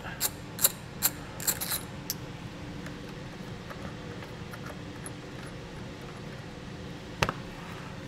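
Ratchet wrench with a 13 mm socket clicking several times over the first two seconds as it backs a nut off the battery terminal, then a faint steady hum and a single sharp click near the end.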